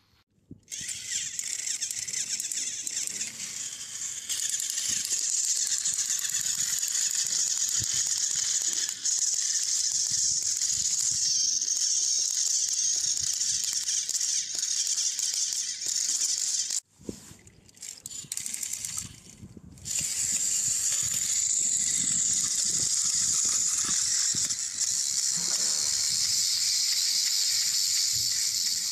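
Battery-powered toy train engines running on plastic track: a steady high-pitched whirr of small motors and gears, starting about half a second in. About two-thirds of the way through it cuts out and stutters for a few seconds, then runs steadily again.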